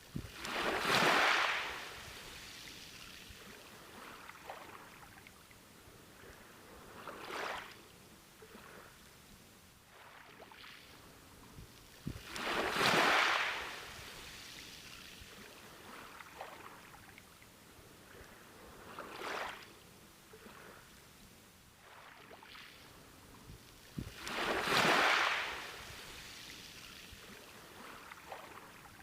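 Sea waves washing onto a beach: a large wave surges in about every twelve seconds, with a smaller wash between each pair, and a low hiss of water in between.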